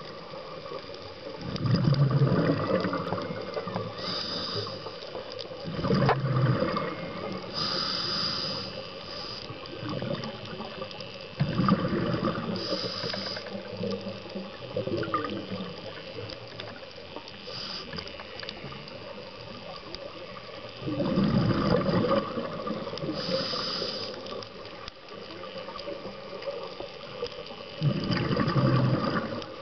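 Scuba diver breathing through a regulator underwater. Short hissing inhalations alternate with louder surges of exhaled bubbles, one breath every several seconds.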